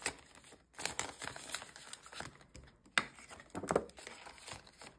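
Polymer banknotes and a clear plastic binder envelope crinkling and rustling as cash is tucked into the sleeve, in short irregular crackles with a sharp click about three seconds in.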